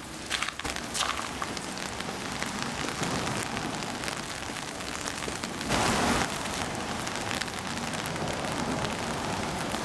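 Steady hiss of heavy rain and running water, with a few sharp clicks near the start and a brief louder rush about six seconds in.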